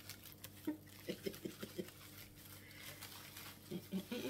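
Packaging crinkling and rustling in short crackles as items are handled, with a few quiet murmured vocal sounds about a second in and again near the end.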